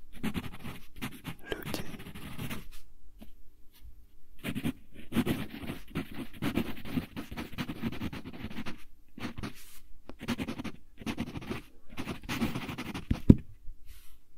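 Wooden pencil writing on lined paper: runs of scratchy strokes broken by short pauses, with a longer pause about three seconds in. A single sharp tap near the end is the loudest moment.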